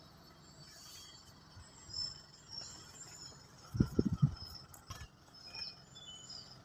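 Faint high chirping in the background. About four seconds in, a brief cluster of low bumps and knocks comes as the hand-held phone is swung around inside the car, with a single click a second later.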